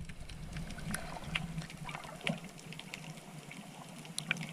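Water sloshing and splashing, with scattered small clicks over a steady low hum.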